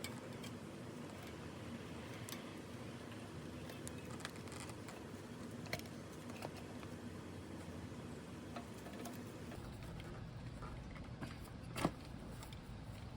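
A few scattered sharp clicks and taps over a steady low background, the loudest one near the end.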